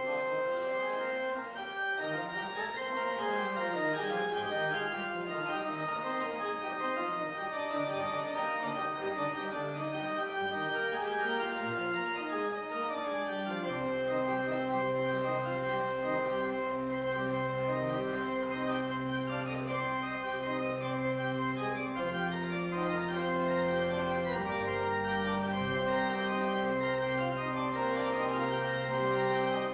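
Church organ playing held chords. About fourteen seconds in, deep bass notes come in underneath and carry on.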